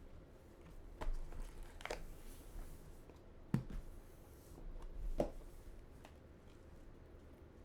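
Trading cards and packaging being handled: a few soft, separate rustles and taps over a quiet room.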